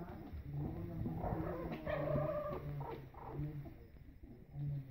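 Four-week-old puppies squealing and whining as they play-fight, the calls loudest about two seconds in.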